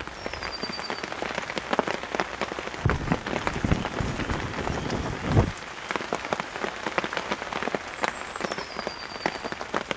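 Steady rain falling on a woodland puddle, with many separate drops ticking throughout. A low rumble swells and fades in the middle, and a faint high falling whistle comes twice, near the start and near the end.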